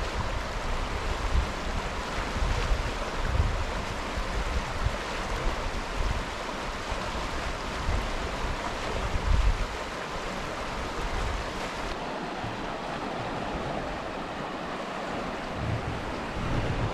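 River rapids: a steady rush of water over rocks, with wind gusts buffeting the microphone that ease off after about ten seconds.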